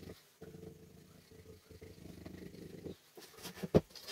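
Plastic wood-glue bottle squeezed to run a bead of glue along an MDF strip, a low rough sound for about two and a half seconds. A loud knock on the workbench comes near the end.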